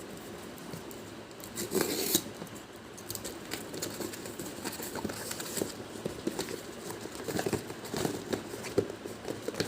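Cardboard box and packaging being opened and handled by hand: rustling, scraping and small clicks, with a louder rustle about two seconds in.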